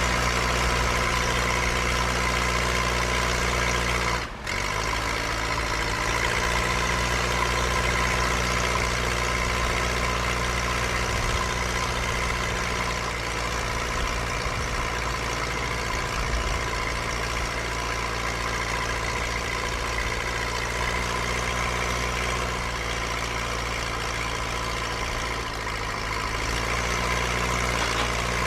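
Bulldozer diesel engine running steadily at a low, idling speed, with a momentary drop in level about four seconds in.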